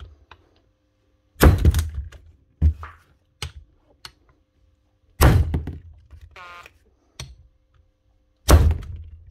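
Makita cordless drill pulsed by the trigger so the Allen key locked in its chuck slams against the bench: three heavy knocks, with smaller knocks between and a brief whir of the motor after the second, as it tries to jar a seized chuck loose.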